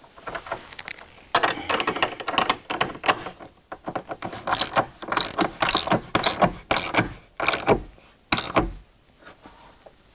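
Hand ratchet wrench clicking in runs as the bench vise's mounting bolts are tightened down, with a string of sharper clacks in the second half.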